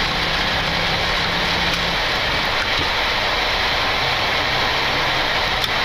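Boeing 737 at takeoff thrust during rotation and liftoff, heard on the flight deck: a steady rush of engine and airflow noise, with a low hum that fades out about two seconds in.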